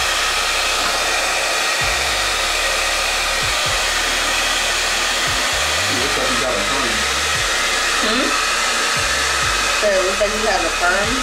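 Hose-type blow dryer running steadily, blowing air over a wet puppy's coat after its bath.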